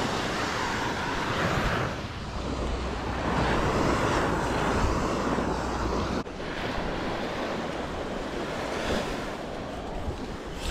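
Small surf waves breaking on a sandy beach, a steady wash that swells and eases, with wind buffeting the microphone.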